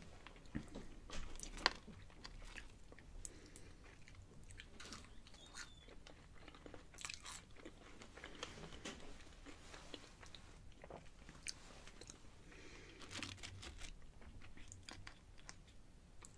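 A person chewing fried food with her mouth, faint wet chewing broken by scattered soft crunches.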